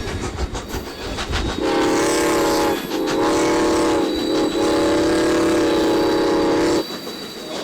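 Steam whistle of 1914 Baldwin steam locomotive No. 18, a chord of several steady tones sounded in three blasts, the first two short and the last longest. Before and after it the train's running noise is heard.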